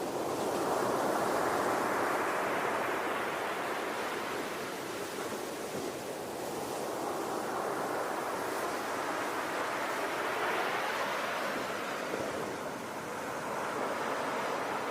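Ocean surf: waves washing in and drawing back, a steady rushing noise that swells and fades slowly, with two broad swells about a second in and again past the middle.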